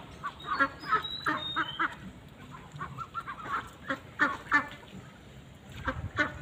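A flock of white Pekin ducks quacking, many short calls overlapping a few tenths of a second apart, thinning out about five seconds in.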